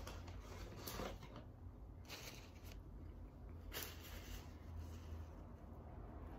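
Paper burger wrapper rustling and crinkling as it is handled, in a few short, faint bursts.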